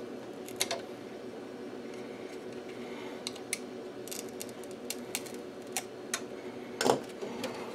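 A screwdriver clicking and tapping against an analogue panel meter's case and the surrounding metal chassis as the meter is pried at, with scattered light clicks and the loudest knock near the end, over a steady low hum.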